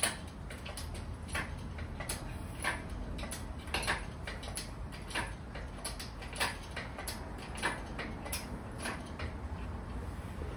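Engine hoist being worked to raise a BMW M47 engine hung from a weighing scale, giving a run of short mechanical clicks at roughly two a second, some louder than others, over a low steady hum.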